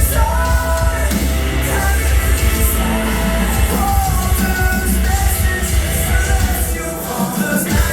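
Rock band playing live, with a singer's voice over loud, heavy bass.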